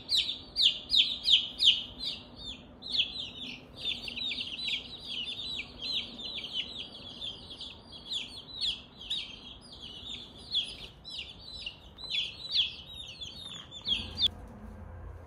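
A brood of young chicks peeping: high, short cheeps that slide downward in pitch, several a second and overlapping, stopping about fourteen seconds in.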